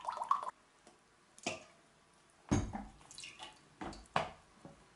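Vegetable oil poured from a bottle into a glass measuring cup, then from the cup into liquid in a stainless steel mixing bowl, with dripping and splashing in a few short spells.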